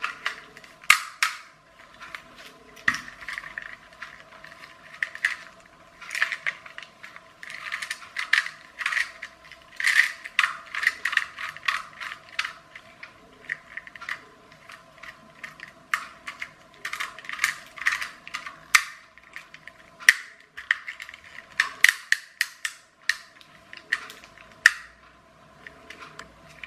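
Small screwdriver working the screws out of a clockwork toy car's clear plastic motor housing, with irregular clicking and rattling of the plastic parts and gears as the unit is handled.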